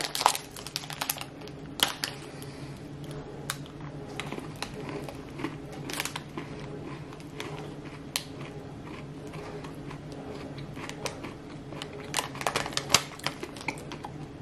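A person chewing a chocolate bar with crisp biscuit pieces in it: irregular sharp crunches throughout, loudest at the start and again about twelve to thirteen seconds in, over a steady low hum.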